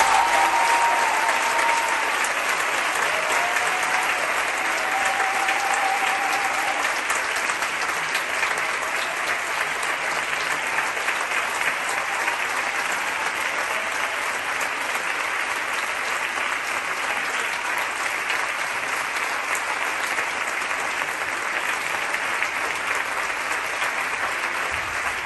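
Theatre audience applauding steadily, loudest at the start and easing off slightly over time.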